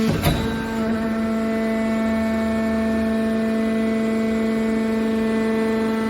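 Hydraulic scrap metal baler running, its pump giving a loud, steady whine, with one sharp knock just after the start.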